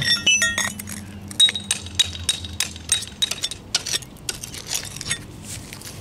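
Hand tools and chips of old caulk and concrete clinking and tapping on a concrete driveway as a crack is chipped and cleared out: a quick run of ringing metallic clinks at the start, then scattered sharp taps and clicks until about five seconds in.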